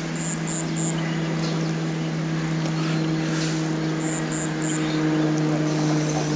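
Steady low machine hum over outdoor hiss, unchanging throughout.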